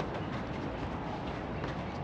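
Steady outdoor background noise with a few faint taps.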